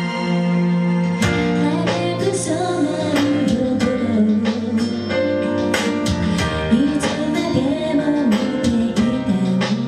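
Live band music: a singer's voice, coming in about a second in, over guitar with regular percussion hits.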